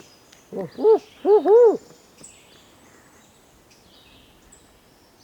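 Owl hooting: four loud hoots in under two seconds, each rising then falling in pitch, the last two run together. Small birds chirp faintly in the background.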